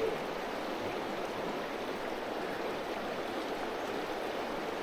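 A creek running: steady rushing of water over rocks.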